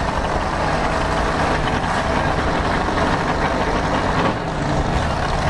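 Drag race car engine idling steadily, with a brief dip a little over four seconds in.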